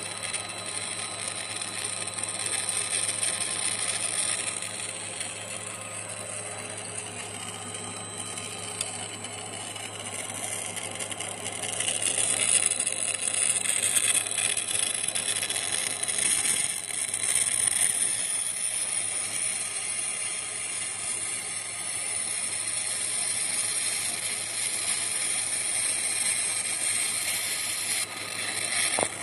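Jewellery pipe-forming and soldering machine running as its rollers and argon-shielded welding torch work a metal strip into tube: a steady low hum under a high hiss, louder from about twelve seconds in.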